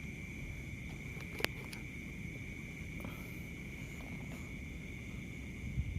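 Crickets and other insects trilling in a steady, continuous chorus over a low rumble, with one sharp click about a second and a half in.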